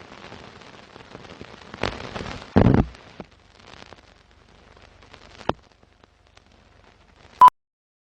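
Rustling and crackling handling noise with scattered clicks and a loud knock a little over two and a half seconds in, then a short loud beep near the end that cuts off into silence.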